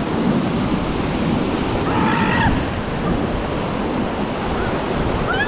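Rushing whitewater of a river rapid, a steady noise of churning water with wind buffeting the microphone. A person's voice calls out briefly about two seconds in.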